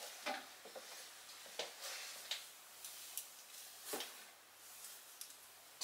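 Quiet room with a handful of faint, brief clicks and light handling noises scattered through it.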